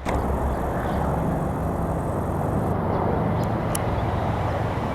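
Steady low mechanical hum under a constant rushing noise, with a momentary audio dropout right at the start.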